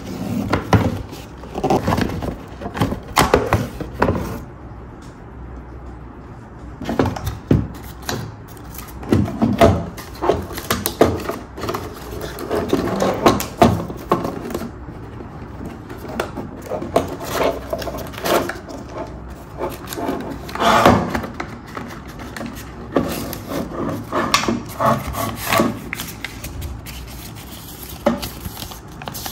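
Hands unpacking a plastic toy from its cardboard box: cardboard scraping and rustling, and plastic parts knocking and rubbing on a wooden tabletop, in irregular bursts with short pauses. A paper instruction sheet crinkles near the end.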